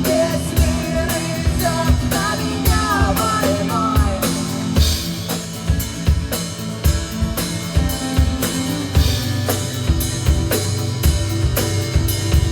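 Rock band playing: a drum kit keeps a steady beat under bass and guitar, with a bending melodic line over it for the first few seconds that then drops away, leaving mostly the drums and bass.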